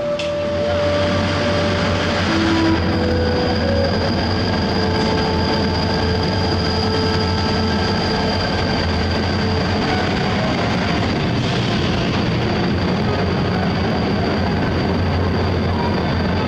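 Steady running noise of a passenger train: a continuous low hum with a thin high whine over it.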